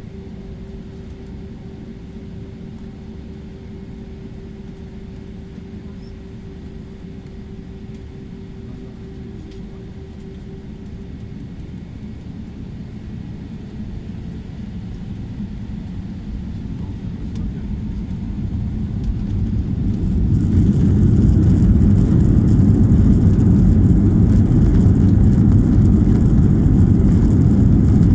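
Jet airliner's engines heard from inside the cabin: a steady hum at first, then spooling up and growing louder from about twelve seconds in, reaching a loud, even rumble with hiss about twenty seconds in as takeoff thrust is set for the takeoff roll.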